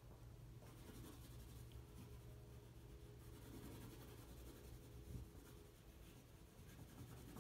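Faint scratching of an oil pastel stick being rubbed across paper while colouring, over a low steady hum.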